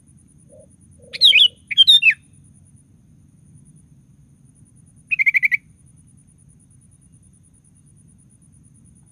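Sooty-headed bulbul (kutilang) singing: two quick whistled phrases about a second in, then a short fast run of repeated notes about five seconds in.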